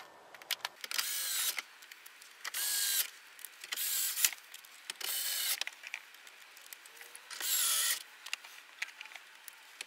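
Cordless electric screwdriver running in five short bursts of about half a second each, driving screws into a truck's dash-mounted radio unit and its bracket.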